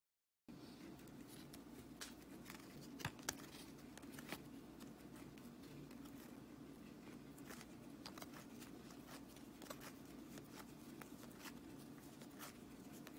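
Near silence: faint, scattered soft clicks of a stack of hockey trading cards being flipped through by hand, over a low room hum, after a half-second of dead silence at the start.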